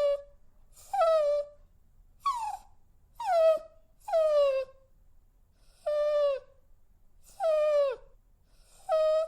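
A dog whining: a string of about eight short high whines, each falling in pitch, coming roughly once a second.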